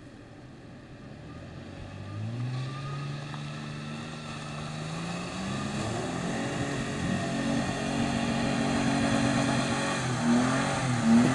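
Toyota FJ Cruiser's 4.0-litre V6 engine running under load as it drives through mud, growing steadily louder as it approaches, with the revs rising and falling near the end.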